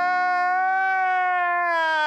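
A man's long, drawn-out crying wail: one held, slightly wavering note that sinks a little near the end, over a lower steady note.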